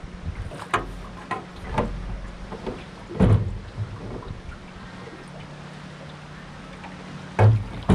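Handling noises as a freshly caught flathead is landed: a scattered series of knocks and thumps, the loudest about three seconds in and again near the end, over a faint steady low hum.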